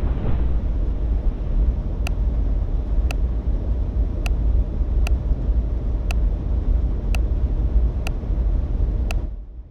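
Deep, steady rumble with a short, sharp tick about once a second, starting about two seconds in; both stop shortly before the end.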